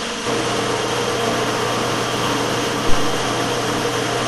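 Steady whirring drone of workshop machinery with a low hum underneath, heard in a paint spray booth. A single knock comes about three seconds in.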